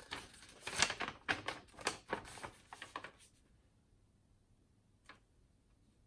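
Papers and cards being handled and shuffled: a quick run of crisp rustles and taps for about three seconds, then one more tap near the end.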